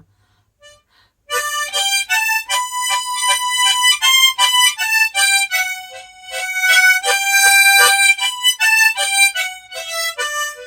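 Harmonica in the key of G playing a slow melody phrase, starting about a second in. Each note is pulsed in quick repeated strokes by tongue-hitting, several strokes to a held note.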